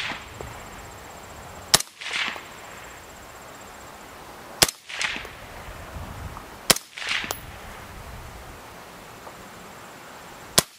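Four single shots from a suppressed AR-15-style rifle firing 5.56 NATO rounds, a few seconds apart, the last near the end.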